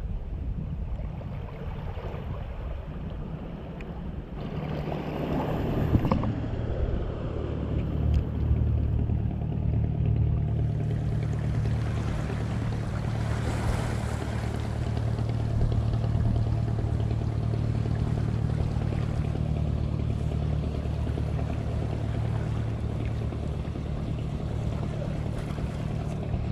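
A passing boat's engine running steadily as a low hum, coming in about four seconds in and holding on, over water and wind noise.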